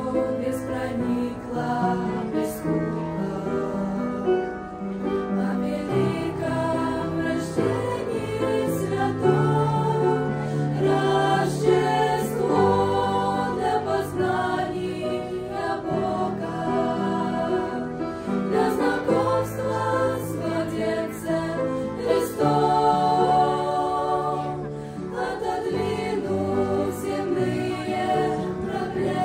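A choir singing a Russian Christmas song over instrumental accompaniment with a held bass line.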